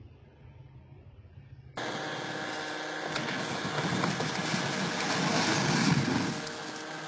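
Faint low hum, then from about two seconds in steady outdoor noise that builds into a heavy rumble peaking near six seconds as a concrete bridge slab breaks away and collapses.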